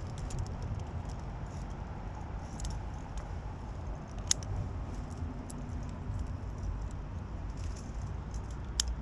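Light metallic clinks and jingles of via ferrata gear, carabiners and lanyard hardware, now and then, with the sharpest clink about four seconds in, over a steady low rumble on the microphone.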